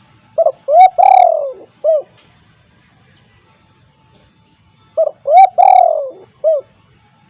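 Spotted dove (tekukur) cooing loudly: two identical phrases about four and a half seconds apart. Each phrase is four notes, two short, then a long note falling in pitch, then a short closing note.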